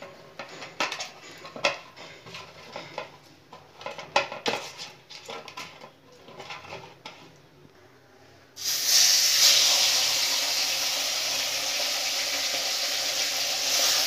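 Light clicks and scrapes of a fish head being handled on a plate, then, about two-thirds of the way in, a turmeric-and-salt-rubbed fish head is lowered into hot oil in a steel kadhai and starts sizzling loudly, carrying on steadily as it begins to fry.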